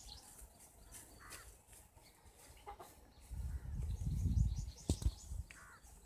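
Handling of an electric pump motor being put back together: a low rumble from about three seconds in, with one sharp knock of a hammer on the metal motor housing near the five-second mark. A hen clucks faintly twice in the background.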